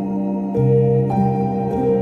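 Calm new-age background music: soft held tones, with new notes coming in about half a second in and again about a second in.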